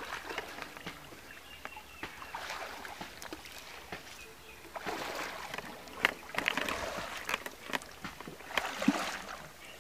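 Water sloshing and splashing, louder and busier from about halfway in, with scattered voices.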